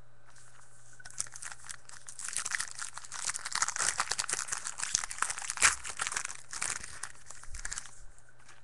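A foil trading-card pack wrapper being torn open and crinkled by hand. A dense crackle starts about a second in and stops shortly before the end, with one sharper, louder crackle a little past the middle.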